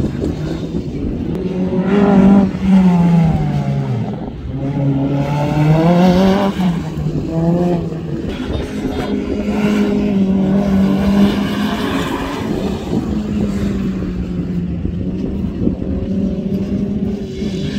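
Rally car engine accelerating hard, the revs rising and dropping several times as it changes gear, then running on more steadily.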